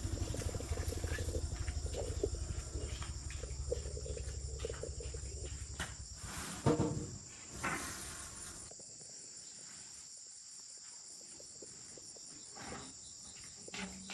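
Farm vehicle's engine chugging at a low, even pulse, fading and cutting out about nine seconds in after two loud knocks. Insects chirp steadily in the background throughout.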